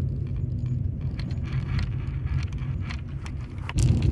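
Car driving slowly, heard from inside the cabin: a steady low engine and road rumble with faint scattered ticks. Near the end the road noise turns louder and rougher, with a crackling patter.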